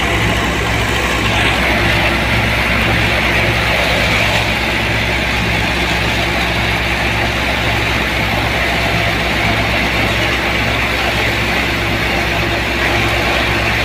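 Powertrac Euro 60 tractor's diesel engine running steadily while it drives a PTO-powered crop thresher being fed dry stalks. The machinery makes a continuous drone with a regular low throb under a steady hiss.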